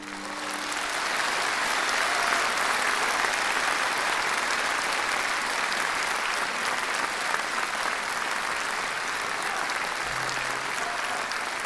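Large audience applauding, swelling over the first second or so and then holding steady, as the last held note of the orchestra dies away.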